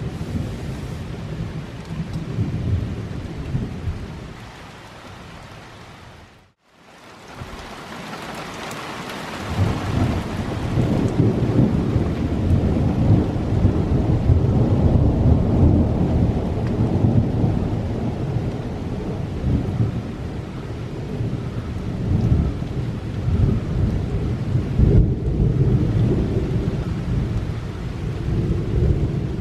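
Thunder rumbling: a roll that fades away over the first few seconds, a brief dropout, then a long, loud rolling rumble that builds from about a third of the way in and rolls on, swelling and easing.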